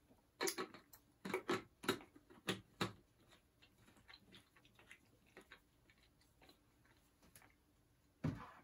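Plastic screw cap being twisted onto a drink bottle: a run of sharp clicks, then fainter scattered ticking. Near the end comes a single thump as the bottle is set down on a wooden table.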